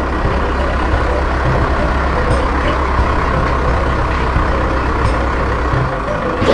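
Heavy vehicle's diesel engine running steadily, a deep even rumble, as from a dump truck or excavator working at a quarry.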